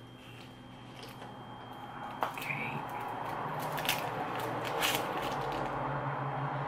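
A Dum Dums lollipop wrapper crinkling as it is pulled off. The crackling grows louder from about two seconds in, with a few sharp crackles.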